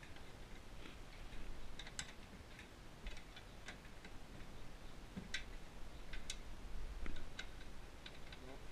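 Sparse, irregular metallic clicks of a wrench working a stubborn bolt loose, over a faint low rumble.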